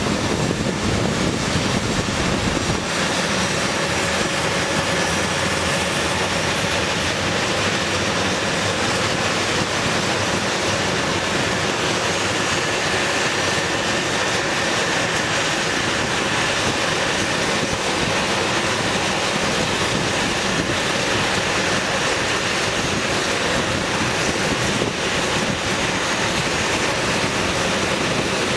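A-10 Thunderbolt II's twin TF34 turbofan engines running at taxi power as the jet rolls along the taxiway: a steady jet hiss and whine.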